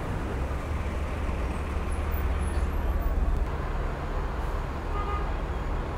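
Steady city street traffic noise with a heavy low rumble, recorded from a moving bicycle.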